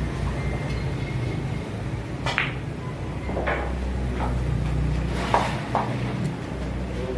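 Billiard balls clacking together in a pool game: about five or six sharp clicks spread over a few seconds, over a steady low hum.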